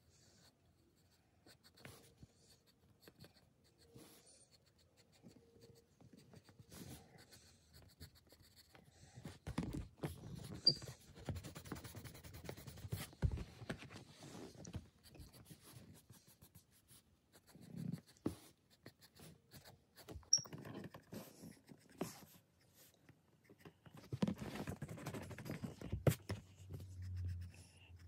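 Graphite pencil scratching on sketch paper in irregular spells of strokes with pauses between, quieter at first and busier towards the middle and end, with a few light knocks.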